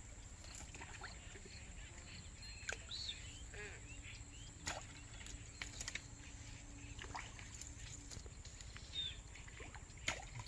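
Rural outdoor ambience: scattered short bird chirps over a steady high hiss, with a few faint sharp clicks.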